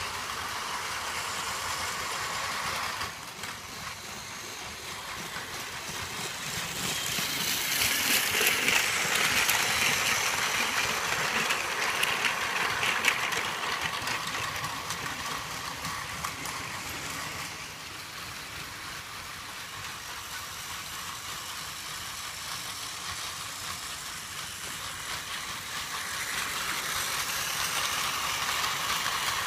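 Battery-powered Plarail toy Shinkansen trains running on plastic track: a continuous whir of their small motors and gears, swelling as a train passes close between about seven and thirteen seconds in, then easing.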